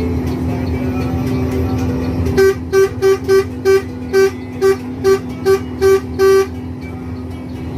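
Bus horn sounded in a quick string of about eleven short blasts over roughly four seconds, over the steady low drone of the moving bus.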